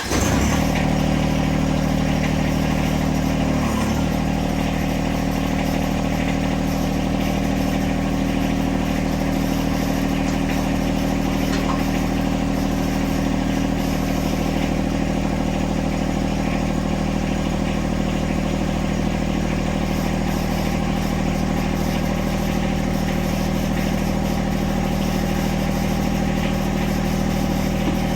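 John Deere 1026R compact tractor's three-cylinder diesel engine running steadily, with a brief dip about four seconds in.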